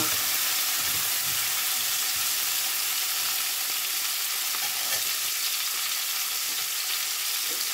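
Diced pineapple frying in hot spiced oil in a non-stick wok, with a steady sizzle. A spatula stirs and knocks softly against the pan in the first couple of seconds, then the pieces are left to sizzle.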